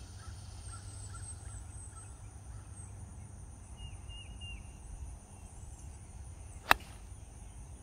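A golf club striking the ball on a fairway approach shot: one sharp, loud crack near the end.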